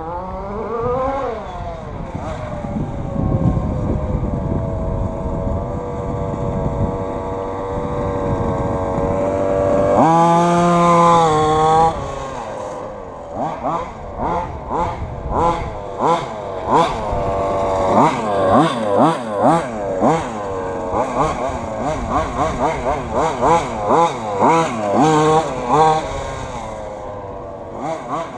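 Small two-stroke petrol engine of a large-scale FG Modellsport 2WD RC car running at varying throttle. Near the middle it is held at high revs for about two seconds, then it is revved up and down in quick blips, about one a second, until it eases off near the end.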